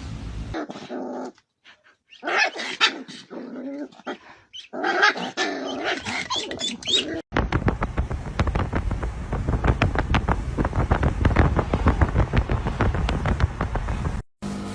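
A dog vocalizing in several short bouts of barks and growls. Then a long run of rapid clicking and rattling begins about seven seconds in.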